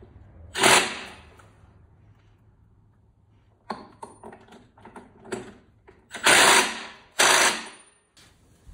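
Cordless impact wrench hammering on the clutch boss nut, run on its highest setting: one burst about half a second in, a few short blips midway, and two longer bursts near the end. The impact is used to snug the nut because the clutch could not be held still to torque it to spec.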